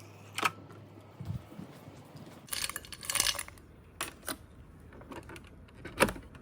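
Kitchen items being handled: scattered light clicks, clinks and knocks of dishes and containers, with a short busier clatter about three seconds in.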